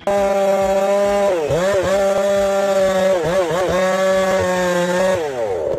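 Engine-driven power saw running at high revs, its pitch dipping and recovering twice as it is loaded in the cut, then winding down near the end.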